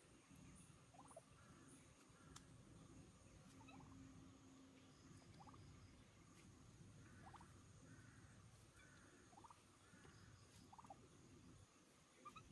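A turkey making short, faint calls, one every second or two, each a brief rising note.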